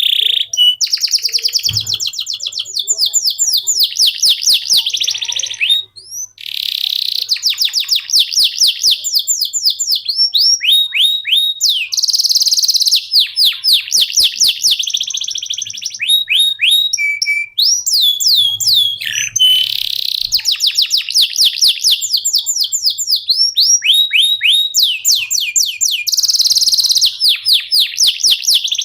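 Domestic canary singing a long, nearly unbroken song of fast trills: rapid runs of repeated sweeping notes, each run at a steady pitch, changing from one run to the next with only brief pauses.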